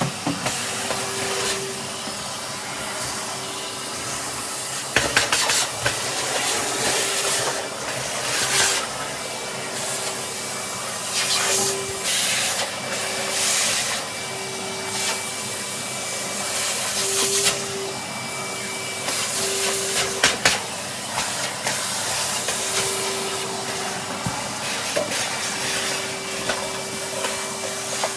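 Henry cylinder vacuum cleaner running steadily with a constant hum, its suction hiss surging louder and softer as the nozzle is worked over the floor. A couple of sharp clicks, about five seconds in and again around twenty seconds.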